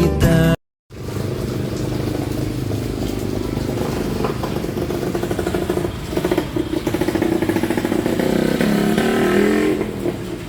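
Music cuts off within the first second. Then a motor vehicle's engine runs steadily with a rapid pulse under a rushing noise.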